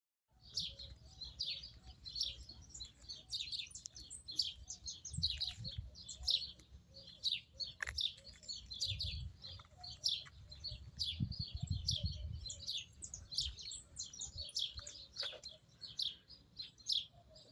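Many small songbirds chirping and twittering together in a dense, constant chorus of short high chirps. A low rumble comes and goes underneath.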